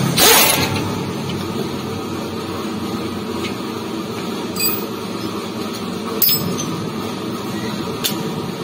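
An impact wrench runs in a short burst on an undercarriage bolt in the first half-second, then a steady mechanical hum carries on, broken by three short sharp clicks.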